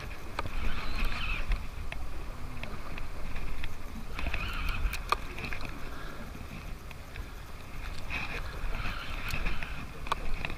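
Fishing reel cranked in three short spells while a hooked fish is played from a boat, over a steady low rumble, with a few sharp clicks.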